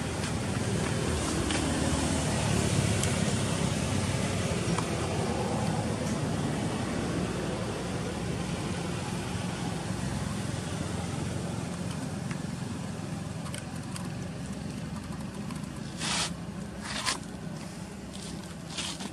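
Steady low rumble of a vehicle in the background, loudest a few seconds in and slowly fading. A few short sharp clicks near the end.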